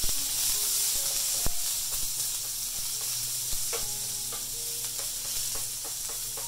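Sliced onions sizzling as they are stir-fried in smoking-hot oil in a wok, with a steady hiss. A wooden spatula clicks and scrapes against the pan now and then.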